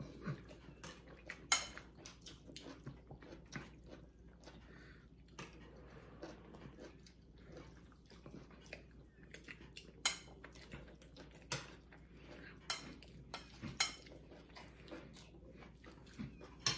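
Forks and spoons clicking and scraping irregularly against ceramic bowls as two people eat noodles, with faint chewing and slurping between the clinks.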